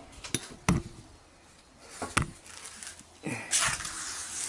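A few sharp knocks as metal motorcycle exhaust parts are handled on a workbench, then a scraping, rubbing noise near the end.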